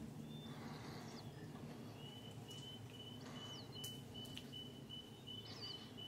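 Mountain-forest ambience over a low steady rumble. A few short, high calls sound, and from about a third of the way in a steady series of brief high pips repeats about two and a half times a second.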